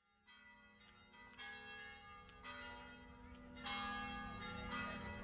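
Church bells ringing, a new strike about once a second, with different bells sounding in turn and the ringing growing louder.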